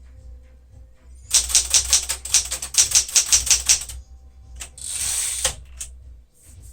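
1975 Smith-Corona Galaxie Twelve manual typewriter being typed on: a fast run of about a dozen sharp key strikes, about five a second, then a brief rattling rush of under a second, and a single light click near the end.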